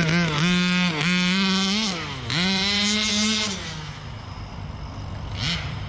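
Small two-stroke gas engine of a 1/5-scale RC buggy, an HPI Baja 5b, revving high in three full-throttle bursts with quick throttle lifts between them. About three and a half seconds in it eases off to a quieter, lower running note, with a short rev blip near the end.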